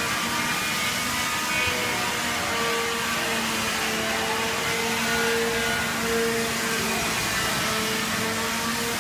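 Steady whirring hum of a running motor or machine, with a held low tone under an even rushing noise.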